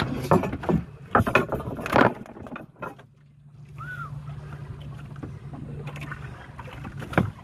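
Small boat's engine running steadily with a low hum, briefly fading out about three seconds in. Several sharp knocks and bumps in the first two seconds as a speared barracuda and the spear are handled against the wooden hull.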